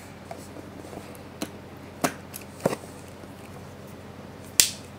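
Quiet room with a few isolated sharp taps and clicks of handling on a desk, the loudest just before the end.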